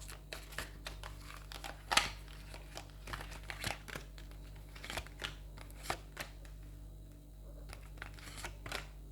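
Tarot cards being handled: soft scattered clicks and rustles of the cards, with one sharper snap about two seconds in.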